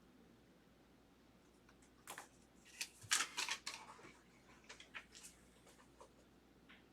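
Trading cards and their plastic packaging being handled: a cluster of short rustles and clicks, loudest about three seconds in.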